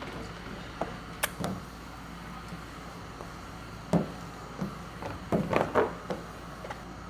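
Scattered short taps and knocks from hands working paint protection film onto a vehicle panel, with a cluster of handling noises about five and a half seconds in, over a steady low hum.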